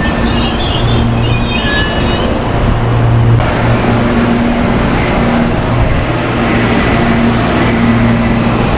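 Electric commuter train running along the tracks: a loud steady rumble with a low hum that swells and fades. There are short high chirps in the first two seconds, and the sound changes abruptly about three and a half seconds in.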